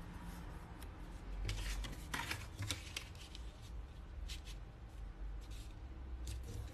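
Faint rustling and crinkling of printed paper handled by hand as a small folded paper gift bag is pressed flat along its freshly glued side seam. There are a few crisper rustles, mostly about one and a half to three seconds in.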